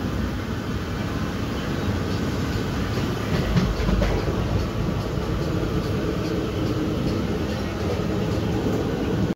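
Passenger train running at speed, heard from inside the coach: a steady rumble of wheels on the rails, with a few clacks about three to four seconds in.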